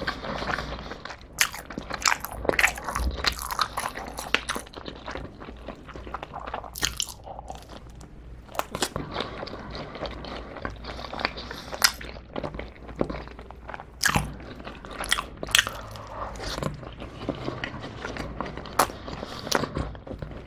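A man chewing mouthfuls of black sugar bubble tea pizza, heard close up: irregular crunches of the crust and wet mouth smacks.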